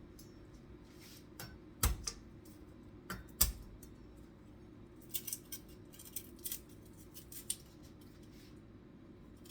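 Kitchen utensils and cookware being handled: two sharp knocks, then a run of light clicks and clinks about halfway through, over a steady low hum.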